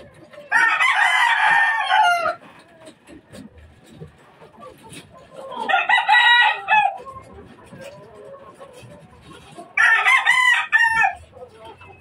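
Three rooster crows, about four seconds apart, each lasting a second and a half to two seconds, with quieter chicken clucking between.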